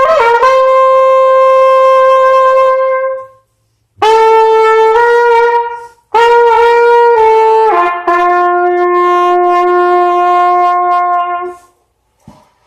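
Solo trumpet playing a melody unaccompanied in three phrases of long held notes, with short breaks between them. The last phrase settles on a lower note held for several seconds and stops near the end.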